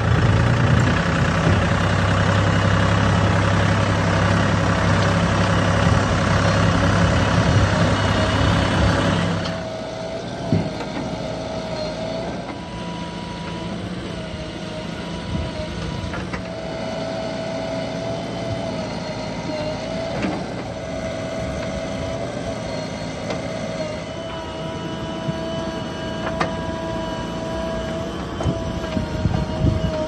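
Diesel engine of heavy farm or earthmoving machinery running, working hard for about the first nine seconds, then dropping back to a quieter steady run with a faint wavering whine. A few sharp clicks or knocks come through over the engine.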